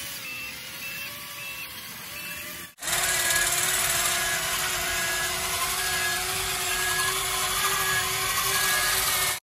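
Steady whine and gear hiss of a toy RC excavator's small electric motors as it works its arm and bucket. The sound jumps abruptly louder about three seconds in and then holds steady.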